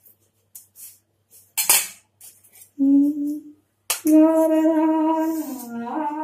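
A few soft clicks and a short sharp noise, then a man hums a brief note and, about four seconds in, starts singing unaccompanied, holding a long note that steps down in pitch near the end.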